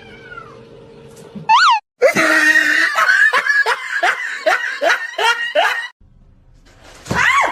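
A cat meowing and yowling: one sharp call, then a quick run of about ten short, rising-and-falling meows over some four seconds, and one more meow near the end.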